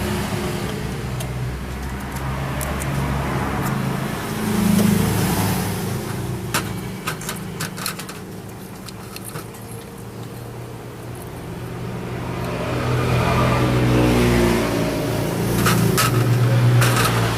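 Generator engine running, its speed rising and falling, with a few sharp clicks.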